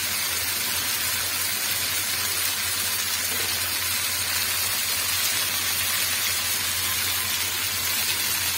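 Pieces of spiced, marinated meat sizzling steadily as they shallow-fry in a little oil in a nonstick frying pan, a continuous even hiss; the meat is nearly done.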